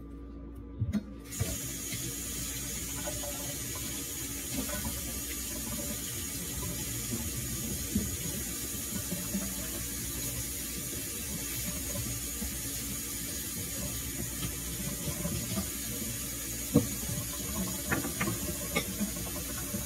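A steady rushing hiss sets in suddenly about a second in and holds. A few light clicks of a paring knife on an onion come near the end.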